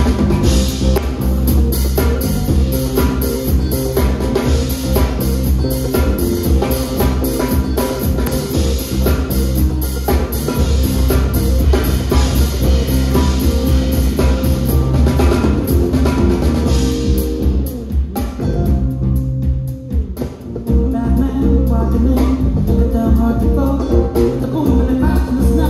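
Live funk band playing, recorded on a phone in the room: drum kit and bass groove with the band. About eighteen seconds in, the drums drop out for a couple of seconds over a held note, then the full groove comes back in.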